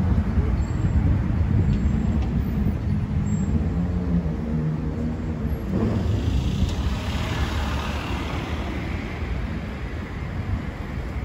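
Road traffic on a town street: a steady low rumble of engines, with the hiss of a passing vehicle swelling about six seconds in and fading over the next few seconds.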